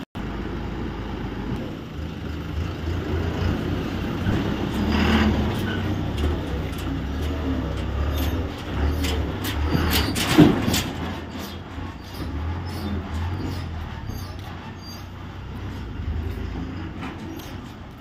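Ashok Leyland Ecomet Star truck's diesel engine running as the truck pulls away and drives off, fading toward the end. A short loud burst comes about ten seconds in.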